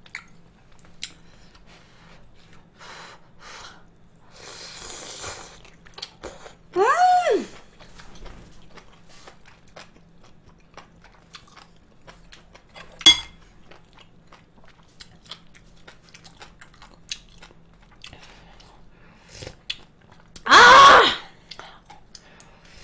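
Close-miked eating of mala tang: noodles slurped and chewed, with small wet clicks throughout. There is a short hummed vocal sound about seven seconds in, a single sharp click near the middle, and a loud breathy vocal sound near the end.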